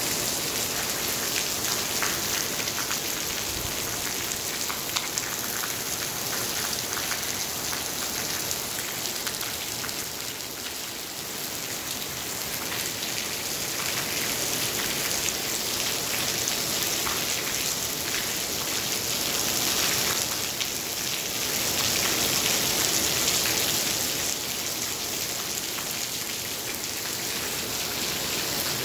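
Heavy rain on a gas station canopy, with streams of runoff pouring off the canopy edge and splashing onto the wet pavement: a steady hiss that swells a little about two-thirds of the way through.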